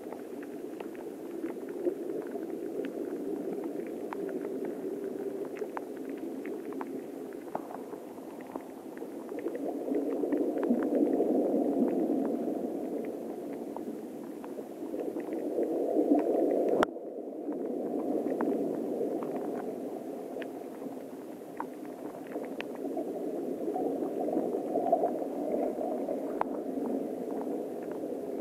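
Waves lapping at the water's edge, heard underwater as a low wash that swells and fades every few seconds, with faint scattered ticks. There is a sudden break just past halfway.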